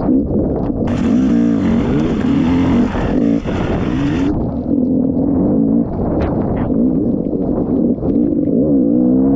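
Dirt bike engine running under changing throttle as it is ridden along a trail, its pitch rising and falling repeatedly, with short knocks and clatter from the bike over the bumps. From about a second in until just past four seconds a steady hiss sits over it, then cuts off suddenly.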